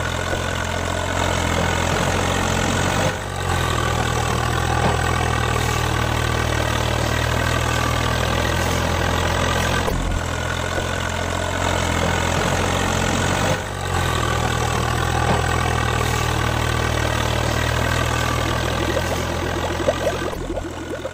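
Tractor engine idling steadily with a deep, constant hum. It drops out briefly about 3 seconds in and again about 14 seconds in.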